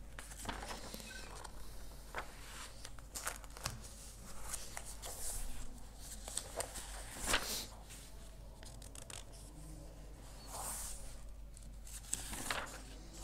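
Paper rustling and crinkling with scattered small clicks, as sheets are handled. A low steady hum runs underneath.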